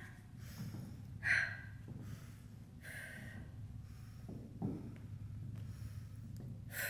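A woman breathing hard after a high-intensity cardio set, catching her breath with about five heavy breaths spaced roughly a second and a half apart, the loudest about a second in.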